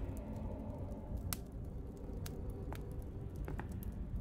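Faint background ambience: a steady low rumble with scattered soft clicks and crackles.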